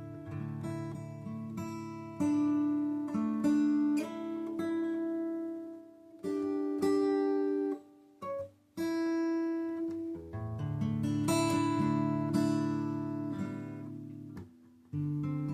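Acoustic guitar played solo: strummed chords and picked single notes ringing out, with short breaks about six and eight seconds in.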